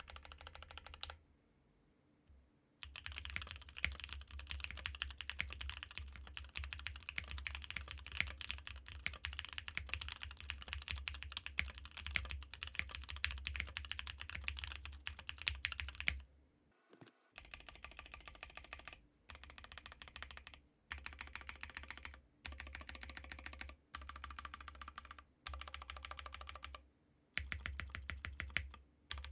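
Fast typing on a mechanical keyboard with stock JWICK Black linear switches, here on a 1.6mm PCB: a dense run of keystrokes, then bursts of a second or so with short pauses between them.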